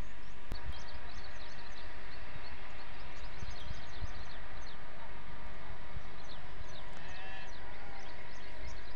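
Outdoor ambience by open water: many small birds chirping in quick high notes over a steady rumble of wind on the microphone, with a short distant animal call about seven seconds in.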